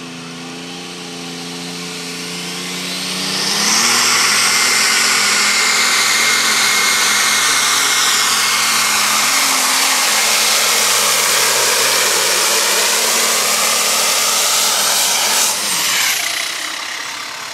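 Turbocharged diesel engine of a New Holland super/pro stock pulling tractor, revving up from a low run about three seconds in. It then runs flat out under the load of the pulling sled, with a high whine over the engine note, and backs off about two seconds before the end as the pull finishes.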